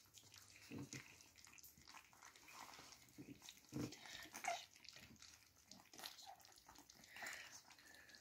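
Faint lapping, smacking and small clicks of beagle puppies eating soft puppy mush from a stainless steel ring-shaped feeding saucer.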